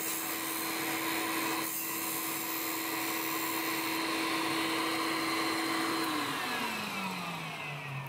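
Grinder spindle with a diamond cutoff wheel running with a steady hum and hiss. About six seconds in, the motor is switched off and the hum falls in pitch as the wheel spins down.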